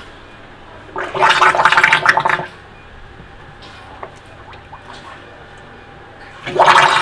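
Water bubbling and gurgling in two bursts of about a second and a half each, the second starting near the end. The bubbling comes from air blown through a hydration bladder's drinking tube into the bladder as it soaks in a pot of warm water.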